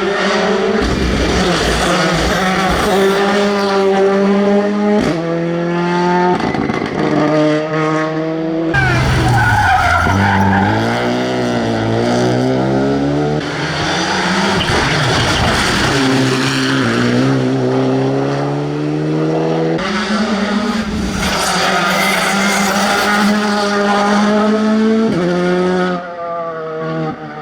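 Classic rally cars at full throttle on a tarmac stage, engines revving up and dropping in pitch at each gear change, one passing close by about ten seconds in, with tyre squeal.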